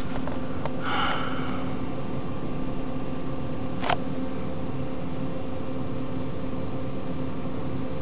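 Steady machine hum with fan-like noise, a brief rustle about a second in and a single sharp click about four seconds in.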